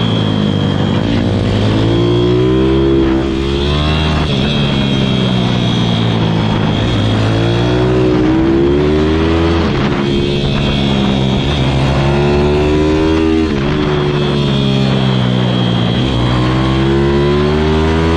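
Pit bike's single-cylinder engine heard from the rider's seat, revving hard through a lap. The pitch climbs under throttle, then drops sharply about four times as the rider shifts or rolls off for corners, before climbing again.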